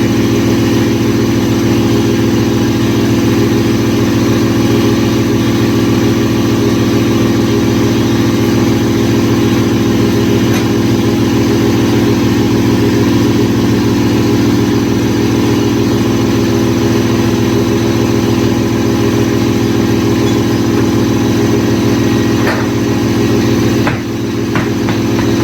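A motor running with a loud, steady hum that holds constant throughout, dipping briefly near the end.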